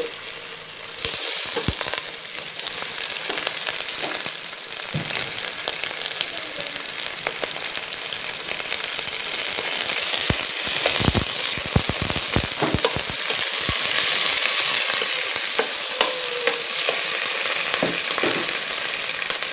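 Raw chicken pieces sizzling as they fry on sliced onions in a stainless steel pot. The sizzle grows louder about a second in. Midway, a metal spoon knocks and scrapes against the pot a few times as the chicken is stirred.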